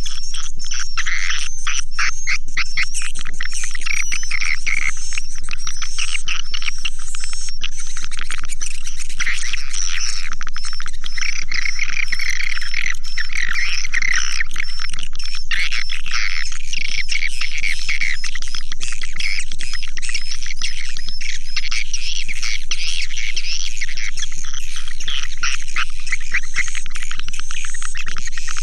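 Swiftlet call recording used as a lure for swiftlet houses: a dense, continuous chorus of high chirps and twittering trills with no pauses.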